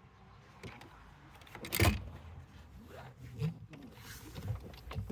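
Knocks, clunks and scrapes of hands and tools working on a car's interior trim, with one loud knock about two seconds in and smaller clunks and rattles around it.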